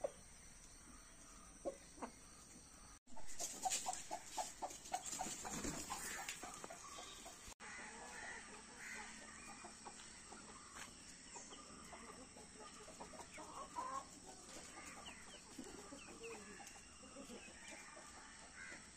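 Domestic chickens clucking as they feed, scattered soft clucks with a louder, busier stretch of rapid clucking about three seconds in.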